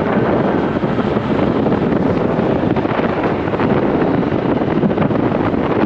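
Wind rushing steadily over the microphone of a moving motorcycle, with the bike's engine running underneath.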